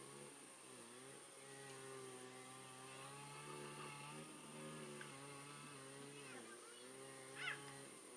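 Faint, steady hum of a small engine running, its pitch dipping briefly twice. A short high call sounds near the end.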